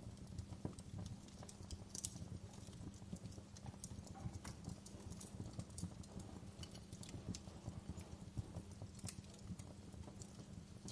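Wood fire in a fireplace crackling, with frequent irregular pops and snaps over a low, steady rumble of flames.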